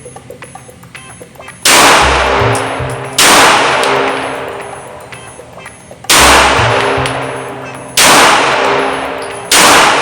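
Five single shots from a Springfield Armory Hellcat Pro 9mm pistol, spaced about one and a half to three seconds apart, each ringing out in a long echo.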